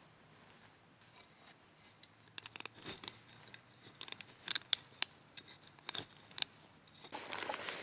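A hand-held blade working small wood on a needle-covered forest floor: a run of sharp cracks and scrapes, densest in the middle. Near the end a steady hiss of rain sets in abruptly.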